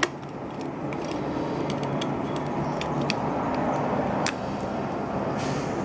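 Steady background hum, with a few sharp clicks as a knife tip picks at leftover fragments of cracked camera-lens glass on an iPhone 7 Plus.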